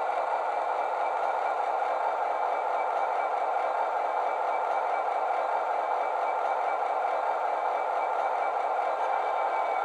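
Class 66 diesel engine sound from a model locomotive's DCC sound decoder, played through a small 25x25x7 megabass speaker, running steadily with a faint high whine over it.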